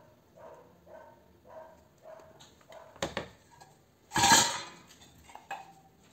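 Metal parts of a dismantled clothes iron clattering as they are handled on a workbench: a sharp clink about three seconds in, a louder clatter of metal about four seconds in, and a smaller clink after.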